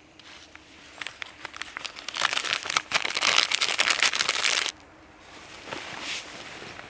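Clear plastic bag crinkling as hands work it, building to its loudest about two seconds in and stopping abruptly near the middle. A fainter stretch of crinkling follows.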